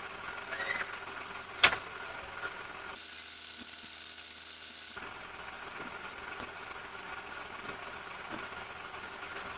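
Car engine idling steadily, heard through a doorbell camera's microphone, with one sharp click or knock about a second and a half in.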